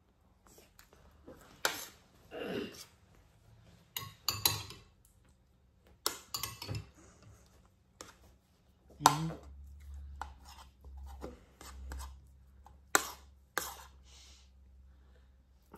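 A metal spoon clinking and scraping against a plate as food is scooped up, in a string of short, irregular clicks and knocks.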